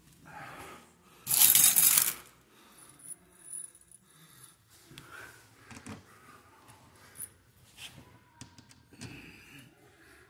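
Small metal clicks and taps as screws are handled and set into the holes of an RV skylight's aluminium frame. A brief loud burst of noise comes about a second and a half in.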